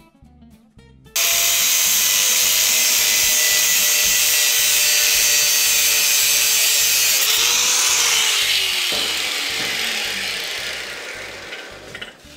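Angle grinder with a cutting disc slicing through the steel shell of an old electric water-heater tank: a sudden loud, steady, hissing whine starting about a second in, its pitch sinking slowly under load, then fading with a falling pitch over the last few seconds.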